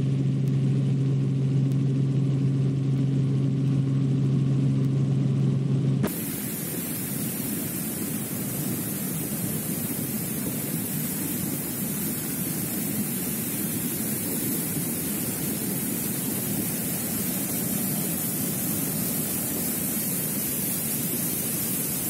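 A steady low hum with a few fixed pitches for about six seconds, then a sudden cut to the loud, even roar of a muddy flood torrent rushing under and against a wooden footbridge.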